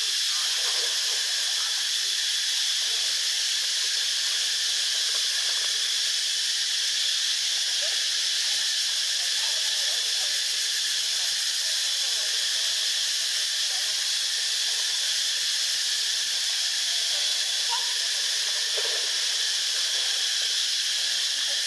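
A steady, even hiss, strongest in the high range, holding unchanged throughout.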